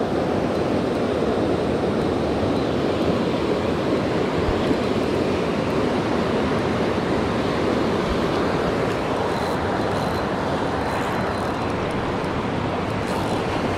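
Steady rush of a fast river riffle pouring over rocks.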